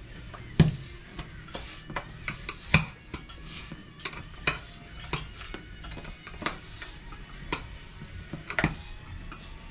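Tire spoon knocking and clinking against a dirt bike wheel rim while prying the tire bead loose: irregular sharp metal clicks and knocks, the loudest about half a second in and near three seconds. Faint background music throughout.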